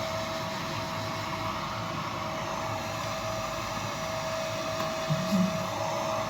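Electric hair dryer running steadily, its motor giving a constant whine over the rush of air, drying a freshly bathed dog.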